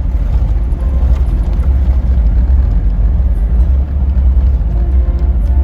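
Toyota Land Cruiser 76 driving along, a steady low rumble of engine and road noise.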